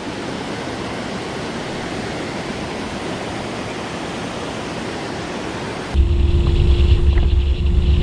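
Waterfall rushing: a steady, even noise of falling water. About six seconds in, the sound switches abruptly to a louder low rumble with a steady hum over it.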